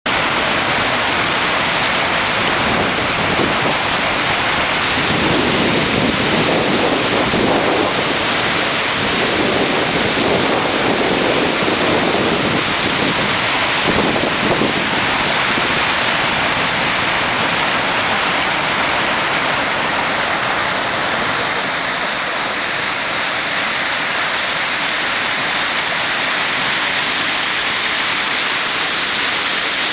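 River water rushing out through an opened dam gate and churning below it, a steady loud rush, with the gate opened to pass ice downstream.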